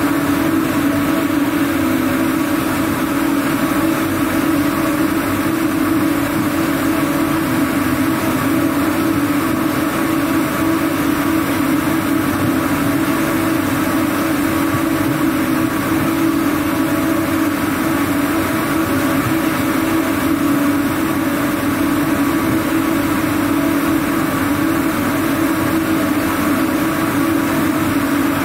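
Ring spinning frames running: a loud, steady machine drone with a strong low hum and an even hiss over it, unchanging throughout.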